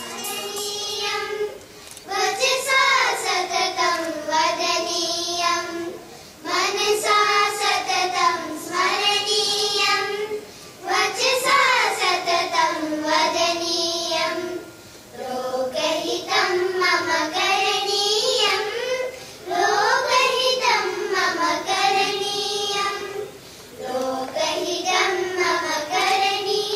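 Children's choir singing together, in phrases of about four seconds with a short breath between each.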